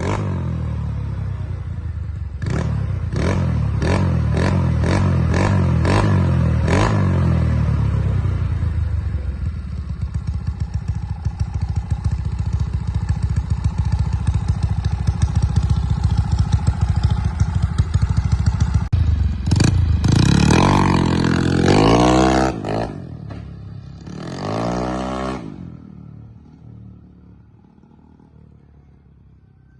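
Yamaha Mio scooter's single-cylinder four-stroke engine, bored up to 200cc, running and being revved. From about two seconds in comes a quick run of throttle blips. Later there are two strong revs rising and falling in pitch, and then the sound dies away.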